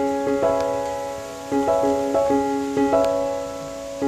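Background piano music: a slow, gentle melody of sustained notes and chords, each struck and left to fade.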